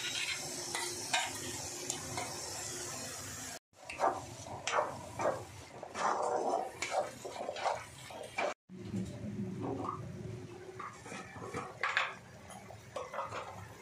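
Masala paste sizzling in an iron kadhai, then a spatula stirring and scraping it with quick clicks and scrapes against the pan. After a cut, a pot of red chicken curry boiling and bubbling.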